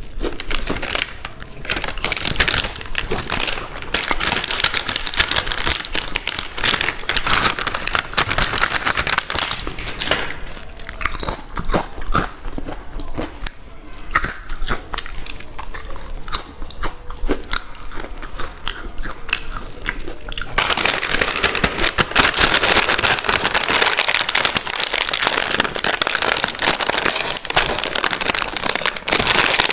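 Close-miked crunching and chewing of crisp Balaji packet snacks, with many sharp bites. About two-thirds of the way through, the separate bites give way to a dense, continuous crackle.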